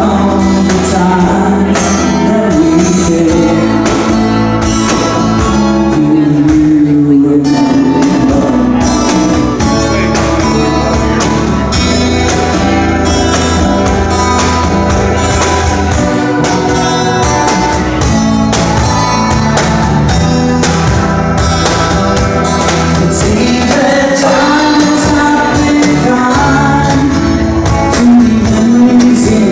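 Live band playing: a man singing lead over strummed acoustic guitar, electric bass, keyboard and a cajón with a cymbal. The voice comes in for a few seconds near the start and again near the end, with the instruments carrying on between.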